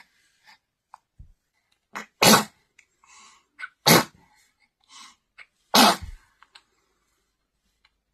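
A two-month-old baby sneezing three times in a row, the sneezes coming about one and a half to two seconds apart.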